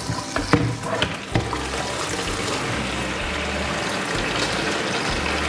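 Water from a kitchen mixer tap running steadily into a plastic bucket in a stainless steel sink, filling it. A few knocks in the first second and a half as the bucket is set down under the stream.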